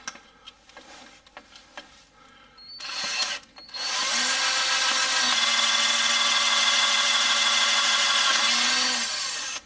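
Cordless drill running in reverse with a left-handed bit, drilling into a broken steel timing cover bolt. There is a brief burst about three seconds in, then a steady run of nearly six seconds that cuts off suddenly, after a few light clicks as the bit is set.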